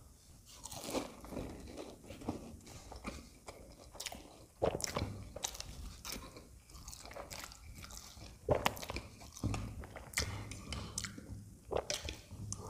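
Close-up eating sounds: crunchy bites and chewing of a fried potato-and-pea samosa and mouthfuls of Maggi noodles, with irregular crisp crackles, a few of them loud.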